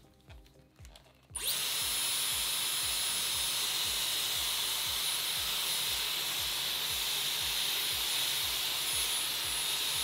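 Dyson Airwrap styler switching on about a second and a half in, then running steadily: a rush of air with a high whine as it draws a thick section of hair onto the curling barrel.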